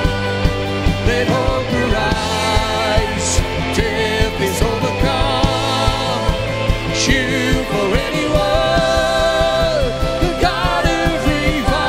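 Worship band playing a rock-style song: a woman singing lead over drum kit with cymbals and acoustic guitar, with a steady beat.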